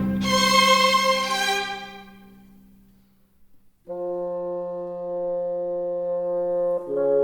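Orchestral background music: a loud chord fades away, there is a short gap, then brass holds a sustained chord that shifts to a new chord near the end.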